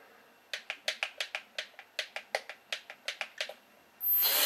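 A rapid run of small plastic clicks, about five a second, from a Hubsan micro drone and its transmitter being handled. A louder, hissing noise starts near the end.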